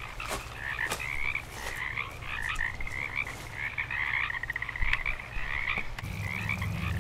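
A chorus of frogs croaking: short pulsed calls and trills overlapping and repeating without a break. A low steady hum joins about six seconds in.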